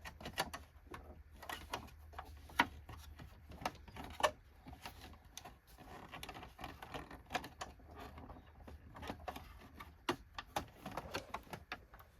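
Irregular light clicks, taps and knocks of hands handling a Hoover WindTunnel upright vacuum's plastic base and its drive belts. There are two sharper knocks, about two and a half and four seconds in.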